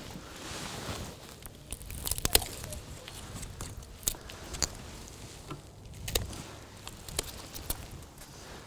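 Dead woody canes being cut back and pulled away: about half a dozen sharp snaps among rustling of dry stems, the loudest a little after two seconds in.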